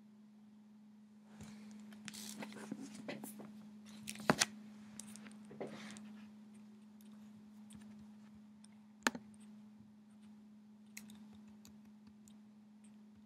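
Faint clicking and rustling at a computer as the slides are clicked through, over a steady low hum. The clicks cluster in the first half, with one sharp click about nine seconds in and a few light ones after.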